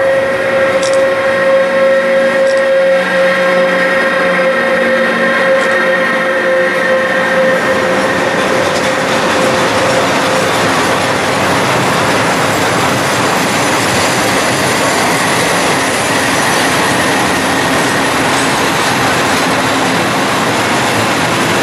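Newag Griffin 111Ed electric locomotive passing at close range with a steady whine that fades out over the first several seconds, followed by loaded flat wagons carrying steel coils rolling by with a continuous noise of wheels on rail.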